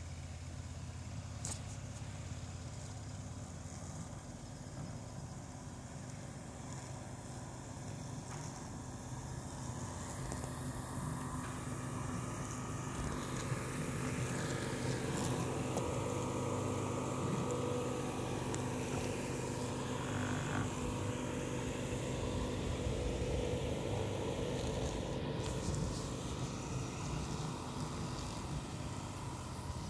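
Ardumower robotic lawn mower's electric motors running with a steady hum as it drives over and mows grass, getting louder about halfway through.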